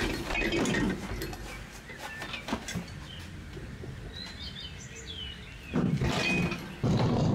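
A two-wheeled hand truck loaded with a chest freezer rolling and rattling along, in rough noisy stretches at the start and twice near the end. Birds chirp faintly in between.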